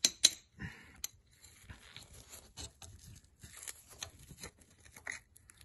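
A metal tool scraping and digging packed sand out of the water jacket of a Rootes 1725 engine block through a core plug hole: a gritty scratching with small clicks, and two sharp knocks near the start. The coolant passages are full of old casting sand.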